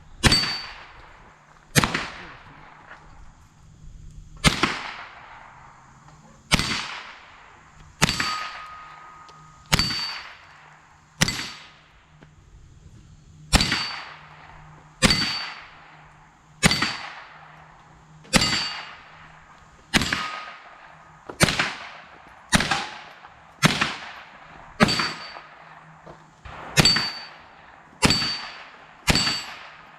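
.22 LR AR-15-style rifle fired in slow semi-automatic shots, about nineteen in all, one every second or two, each a sharp crack with a short ringing tail. The shooter is emptying the magazine.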